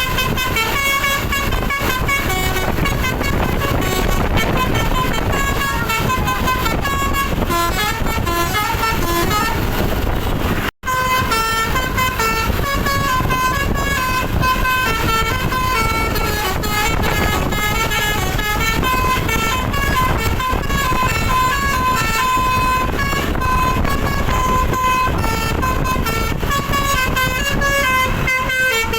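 Bus telolet horn, a set of multi-tone air horns, playing a continuous melody of stepping notes over bus engine and road rumble. The sound cuts out for an instant about eleven seconds in.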